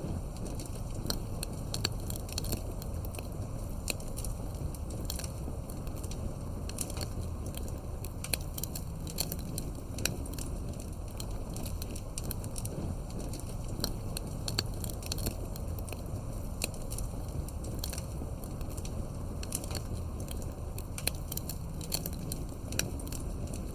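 Campfire of burning wood crackling, with irregular sharp pops and snaps scattered through it over a steady low rumble.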